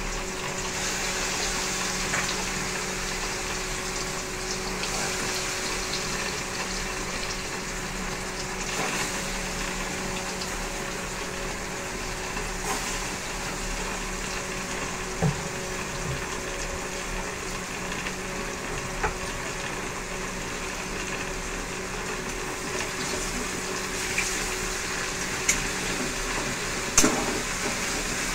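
Oil sizzling steadily in a steel kadai as egg-and-spice-coated chicken pieces fry, with a few sharp knocks of the metal spatula against the pan, mostly in the second half.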